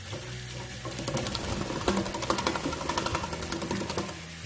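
Black-capped lory bathing: a rapid run of small splashes and wing-flutters in water from about a second in, over a steady low hum.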